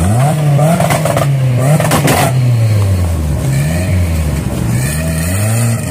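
Off-road vehicle engine revving, its pitch rising and falling again and again as 4x4s and buggies drive past close by.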